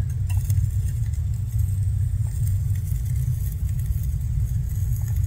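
Steady low rumble of a 2003 Ford F-150 idling, heard from under the dash beside the water-damaged GEM/fuse box.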